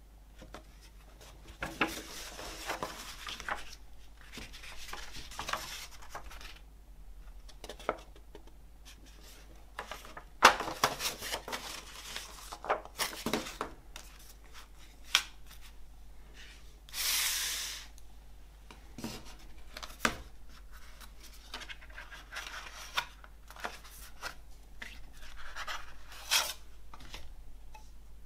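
Handling of a folded paper lyric sheet and a cardboard CD sleeve: paper rustling, rubbing and crinkling as it is folded, with scattered light taps and one longer sliding swish a little past the middle.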